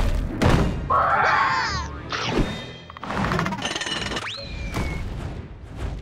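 Animated-cartoon soundtrack: orchestral music scored with sound effects. It has several heavy thuds in the first second or so, and a quick whistle-like glide that rises and then falls a little past the middle.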